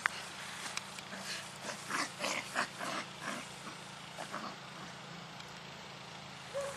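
A Mudi and her puppies play-wrestling on grass: a run of short, rough snuffling and scuffling noises, densest from about two to four seconds in.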